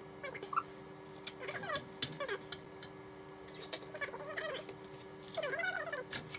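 A cat meowing several times in drawn-out calls that bend up and down in pitch, the loudest near the end, over scattered clinks of a utensil against a metal pan.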